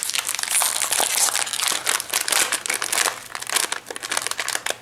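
Plastic snack-bag packaging crinkling and crackling as it is handled, a continuous run of sharp crackles that eases off near the end.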